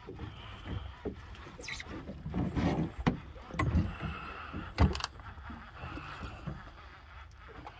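Sea water lapping and slapping against the hull of a small fishing boat, with irregular knocks and bumps, the loudest about three and five seconds in.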